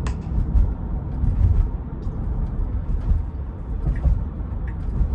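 Steady low tyre and road rumble inside the cabin of a moving Tesla, an electric car with no engine note.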